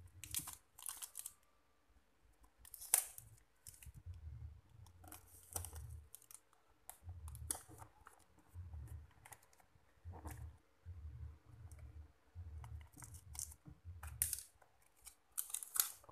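Brown packing tape being handled, torn into strips and pressed down over a paper label on a cardboard box: faint scattered crackles and clicks over soft low thumps of hands on the box.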